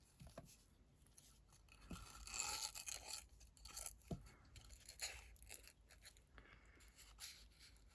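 Faint rustling and scraping of a ribbon being handled and tied into a double knot, with a few small ticks, loudest a couple of seconds in.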